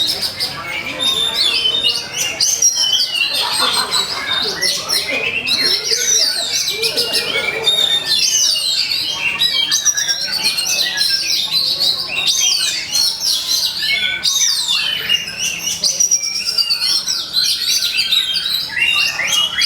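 Oriental magpie-robin (kacer) singing a continuous, fast run of varied whistles, trills and chatters, rising and falling notes packed together with hardly a pause. It is the full-voiced combative song that keepers call "ngeplong" and "tarung".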